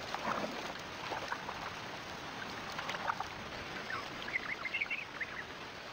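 River water splashing and lapping, with a run of short, high bird chirps about four to five seconds in.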